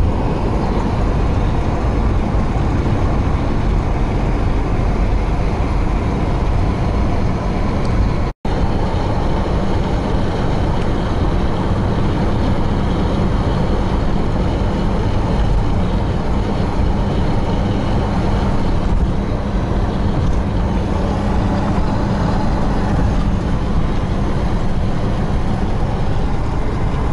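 Steady road and engine noise of a car driving at speed, heard from inside the cabin. The sound cuts out for an instant about eight seconds in.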